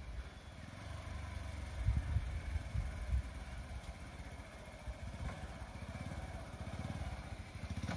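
Motorcycle engine running as the bike rides closer, a low, even engine beat that grows a little louder near the end.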